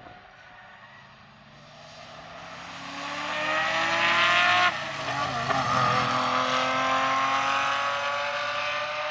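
Rally car engine approaching and accelerating hard, its note climbing and getting louder. About halfway through the note breaks off sharply, then the engine pulls again at high revs with the pitch rising.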